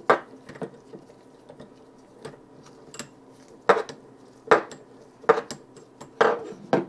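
Metal hand tools clinking and clanking as 10 mm wrenches are picked up and fitted, about ten separate sharp knocks with short gaps between them.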